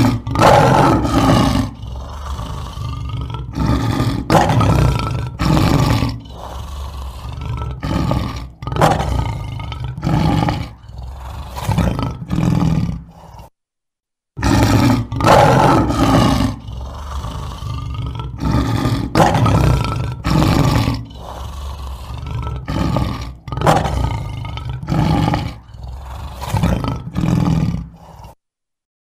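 Lion roaring: a few long, deep roars followed by a run of shorter ones. After a short silence about halfway through, the same sequence of roars plays again.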